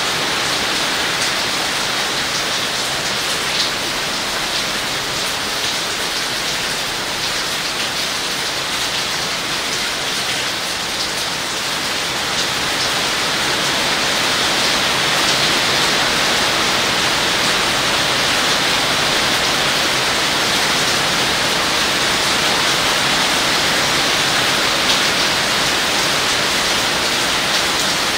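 Heavy rain falling steadily onto leaves: a dense, even hiss with occasional sharper drop hits. It grows a little louder about halfway through.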